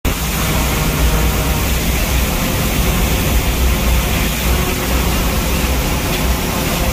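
Hurricane-force wind blowing steadily and loud, with a heavy low rumble of wind buffeting the microphone and a dense hiss of wind-driven rain and spray.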